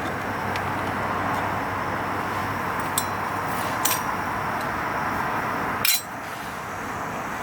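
A few light metallic clinks and knocks of camp cookware, a pot and mug being handled, over a steady rushing noise; the loudest knock comes near the end.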